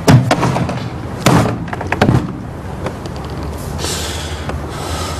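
A door slams shut, followed by several more heavy thuds over the next two seconds.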